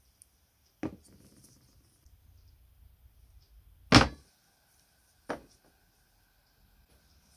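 Three separate knocks of pieces being set down and handled on a wooden workbench. The second, about four seconds in, is the loudest.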